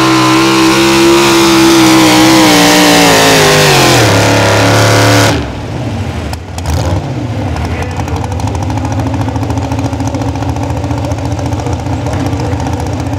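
Super Stock 4x4 pulling truck engine running hard at high revs, its pitch sagging and falling as the truck slows at the end of the pull. About five seconds in the sound drops suddenly to a much quieter, steady idle.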